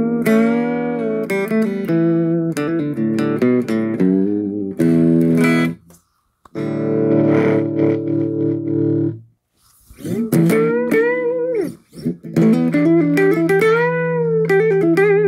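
Electric guitar played through the high-gain channel of a Peavey T.G. Raxx tube preamp (two 12AX7s) into a guitar amp: held chords and lead lines with string bends, stopping for a moment a few times. The preamp is working.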